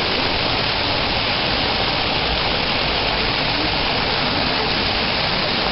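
Waterfall pouring in a steady, even rush of water.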